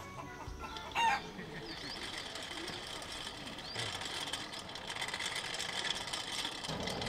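Rooster giving one short, loud call about a second in. A steady faint hiss follows and builds from about four seconds in.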